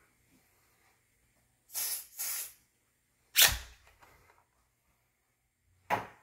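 Two short hissing sprays, typical of aerosol canned smoke tester being sprayed at a smoke detector. They are followed by a louder sharp sound with a low thud about three and a half seconds in, and another sharp sound near the end.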